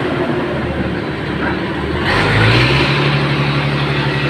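Sawmill's engine running steadily, then speeding up about two seconds in, its hum rising in pitch as a loud hissing noise joins it.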